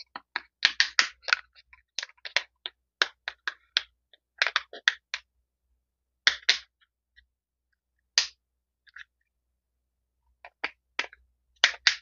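Plastic housing of an itel mobile phone snapping together as it is pressed along its edges: runs of sharp clicks in short clusters, with a few single clicks and pauses between.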